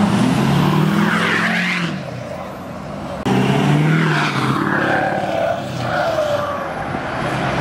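Lifted pickup trucks driving past close by, their engines revving up and easing off. The sound jumps abruptly about three seconds in to another truck passing.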